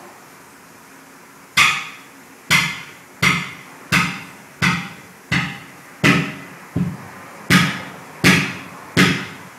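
Sledgehammer blows, eleven strikes at an even pace a little under a second apart, each with a short ring, beating a large tractor tyre onto its rim to mount it.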